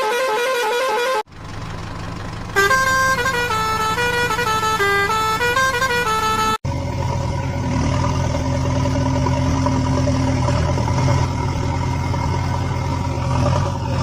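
Electronic sound effects from toy construction vehicles: a warbling horn tone, cut off suddenly, then a low engine rumble with a short beeping melody over it, and after another abrupt cut a steady engine rumble with a held horn-like tone.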